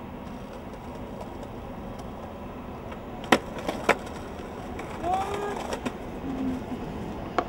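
Skateboard wheels rolling on concrete, then a sharp ollie pop about three seconds in and knocks as the board lands on a granite ledge and grinds along it. A few more knocks follow as the rider bails and the board clatters away.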